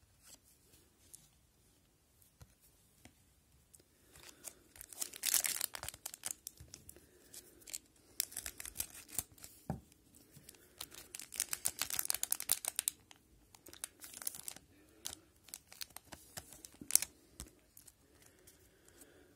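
Plastic-foil hockey card pack being torn open, its wrapper crinkling and tearing in irregular bursts after a few quiet seconds, followed by lighter rustling and clicks of the cards being handled.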